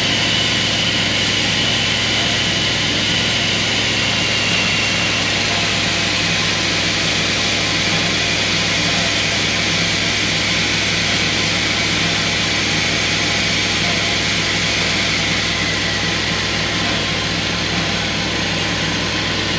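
Water pump running steadily while it fills a Heisler steam locomotive's water tank through a hose. A faint high whine over it slowly drops in pitch.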